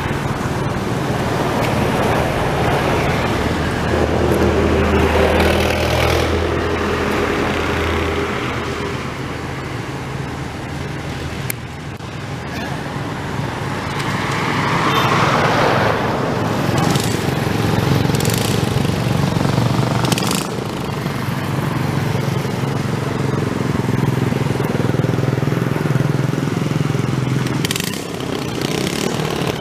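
A small engine running steadily. It swells and fades, and is loudest about halfway through.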